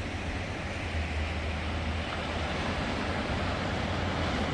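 Steady low rumble and road noise of a vehicle driving.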